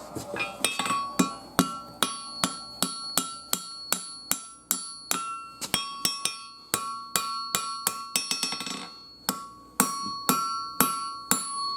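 Hand hammer striking hot 5160 spring steel on an anvil, about two to three blows a second with two short breaks, each blow leaving a bright metallic ring: the end of a knife handle being forged to a taper.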